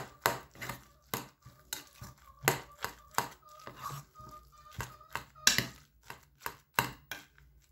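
Soaked bread and raw egg being kneaded and squeezed by hand in a bowl: irregular wet squelches and knocks against the bowl, two or three a second.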